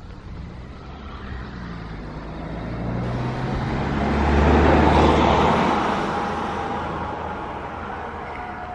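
A motor vehicle passes on the road, its engine and tyre noise growing louder to a peak about halfway through and then fading away.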